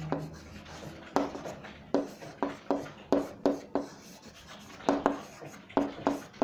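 Handwriting on a diagram: about eleven sharp, irregularly spaced taps and short strokes of a writing tool, each tap with a brief low ring.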